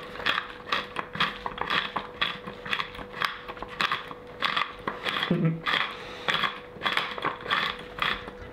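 Hand-held pepper mill full of mixed peppercorns being twisted, grinding pepper in a quick, continuous series of ratcheting clicks and crunches.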